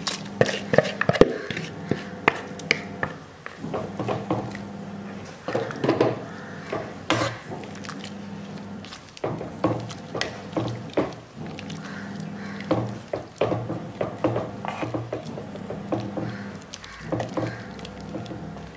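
Wooden spoon stirring prawn curry in a clay pot, with irregular knocks and scrapes of the spoon against the pot's sides.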